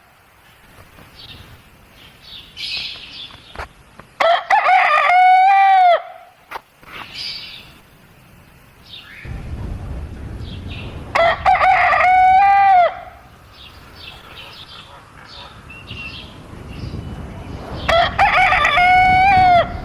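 Rooster crowing three times, about seven seconds apart, each crow lasting a second and a half to two seconds and dropping in pitch at the end. Softer, short clucks and chirps come between the crows.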